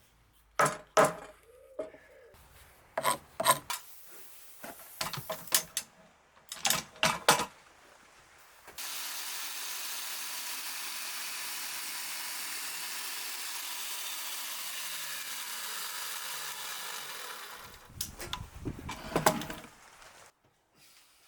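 Wooden knocks and clatter of tools on oak timber, then a chain mortiser runs for about nine seconds, cutting a mortise into the oak beam, its motor pitch dipping and recovering as it bites in. More knocks follow near the end.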